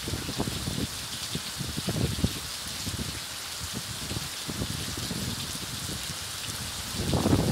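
Steady rain falling on gravelly desert ground and puddles, an even fine hiss with irregular low thumps underneath that grow louder near the end.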